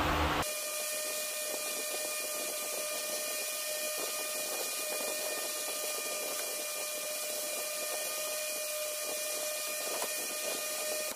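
Steady hiss with a faint, even whine running through it; a louder low hum stops about half a second in. A few faint clicks near the end.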